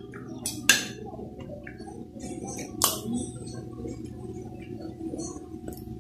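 Eating at a table: chewing, with a metal spoon and fork clinking sharply against a glass plate twice, about a second in and again near the three-second mark, plus a few lighter utensil ticks. A faint steady hum sits underneath.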